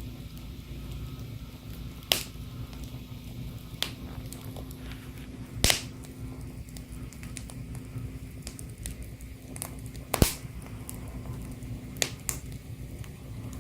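Wood fire burning in a fireplace, crackling with sharp, irregular pops every second or few over a low steady rumble; the loudest pop comes about ten seconds in.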